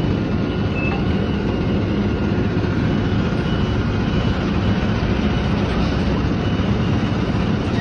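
Steady, loud rumble of vehicle engines and traffic, with no breaks or sudden sounds.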